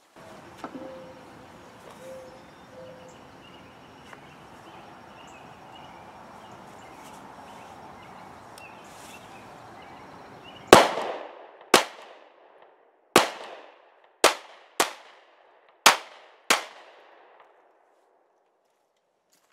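Seven shots from a Smith & Wesson Shield 9mm pistol, starting about halfway in and fired at an uneven pace of roughly one a second over about six seconds. Each is a sharp crack with a short ringing tail, the first the loudest. Before the shots there is only a faint steady outdoor background.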